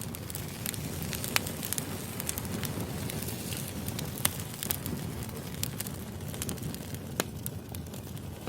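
Wood fire burning: logs crackling with sharp, irregular pops over a steady low rush of flame, a few pops standing out louder.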